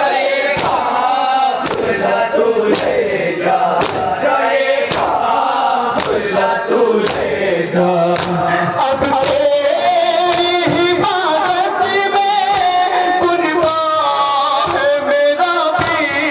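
A noha chanted by a male voice with a crowd of men chanting along. Under it the crowd beats their chests in unison (matam), sharp strikes about once a second that are clearest in the first half.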